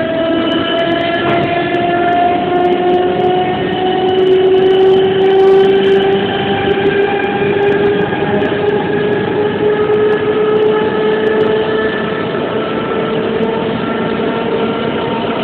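Nose-suspended (tsurikake) traction motors and gearing of a Tobu 5070-series electric train, heard from inside the car, whining and climbing slowly in pitch as the train gathers speed, over steady running noise from the wheels and track.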